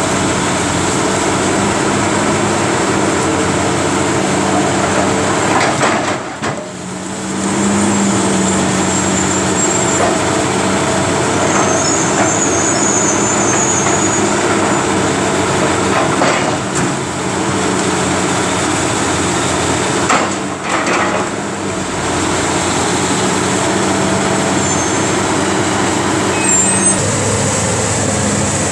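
Caterpillar 330B excavator's diesel engine running steadily under load as its demolition grab works the building, with occasional knocks and crunches of breaking debris. The engine and machine noise eases briefly twice.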